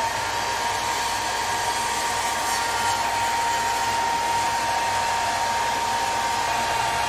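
Electric hot-air blower running steadily: a rush of air with a steady fan whine, heating vinyl wrap film to soften it.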